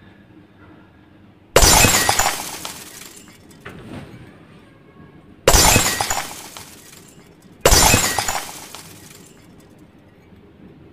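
Glass shattering three times: a sudden loud crash about a second and a half in, another near the middle, and a third about two seconds later, each one ringing away over a second or so.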